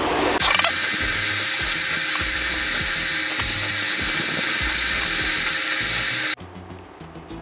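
Background music laid over a fast-forwarded stretch: a loud, steady, hissing, drill-like whine over a low pulsing beat. About six seconds in it cuts abruptly to a quieter track with a light beat.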